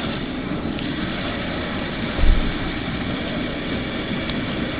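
Propane burner of an outdoor turkey fryer running steadily under the pot of frying oil, with a brief low thump a little over two seconds in.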